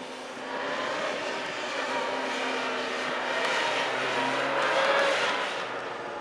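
Police motorcycle engine running at low speed through a cone course, the throttle opening and easing off. It grows louder to a peak about five seconds in, then fades.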